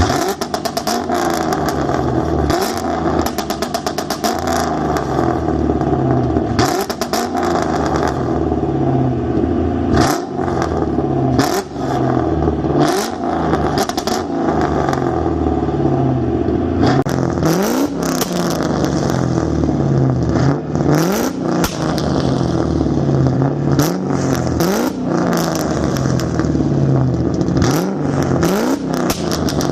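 Straight-piped Mustang GT V8 revving hard again and again, its rpm climbing and then dropping. Sharp exhaust pops and bangs come with the ignition cut from a WOT box set up for launch control and no-lift shifting, the cut being used to make flames.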